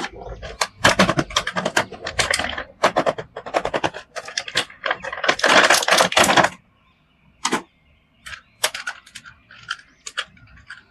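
Clicking and clattering of plastic from toys and packaging being handled, a dense run of quick clicks for about six seconds, then a few scattered single clicks.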